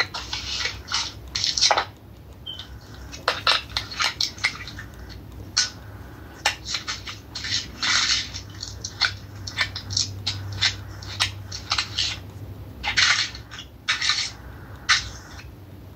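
Paper pages being leafed through and rustled, in many short, irregular crinkling bursts with a few sharper clicks.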